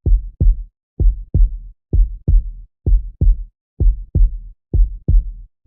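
Human heart sounds beating at about one beat a second: six paired lub-dub thumps. The lub is the closure of the bicuspid (mitral) and tricuspid valves, and the dub is the closure of the semilunar valves.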